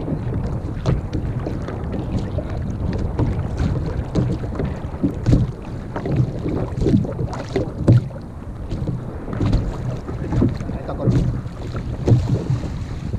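Small waves slapping and sloshing irregularly against the hull of a plastic sit-on-top kayak, with wind buffeting the microphone.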